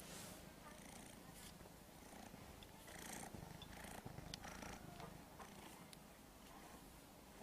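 Domestic cat purring, faint and steady, with a few small clicks.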